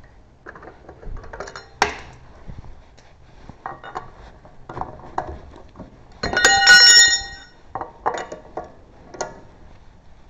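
Metal clinks and clanks of lug bolts and tools being handled, with one louder metallic clank about six seconds in that rings for about a second.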